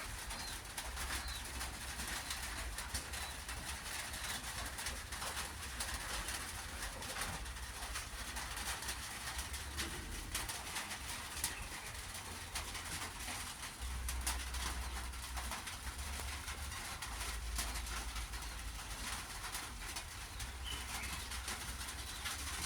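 Steady rain hiss with many fine pattering drops, with bird calls over it and a few faint high chirps.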